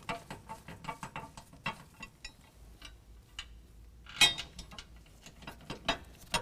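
Light metallic clicks and taps of a metal mounting bracket and button-head screws being handled and threaded in finger-tight against the underside of a truck frame, with one louder knock about four seconds in.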